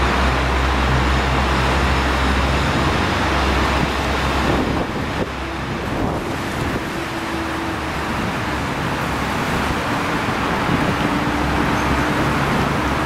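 Strong wind rumbling on the microphone, a steady roar with no breaks.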